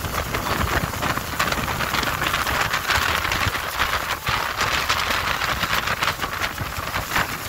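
Steady rushing of wind buffeting the microphone and water washing along the hull of a boat under way, with a fluttering low rumble.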